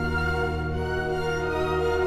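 Background music: slow orchestral strings holding sustained notes over a low bass.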